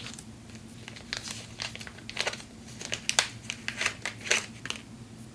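Freshly sharpened hair shears cutting dry hair in a cut test: a quick series of short, crisp snips and rustles, starting about a second in.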